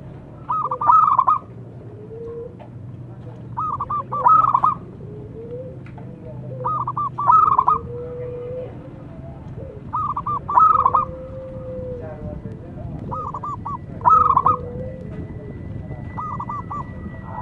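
Zebra dove (perkutut) singing: a quick phrase of rippling, stuttering coos, repeated about every three seconds, six times over.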